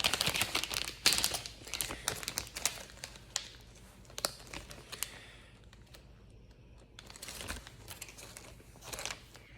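Plastic bag of soft plastic stick baits crinkling as it is handled and opened, dense crackling for the first few seconds, then sparser crinkles.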